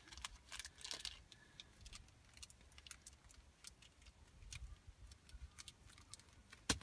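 Faint crinkling and light clicking of a small foil-and-plastic battery package being handled and opened by hand, with one sharp click near the end.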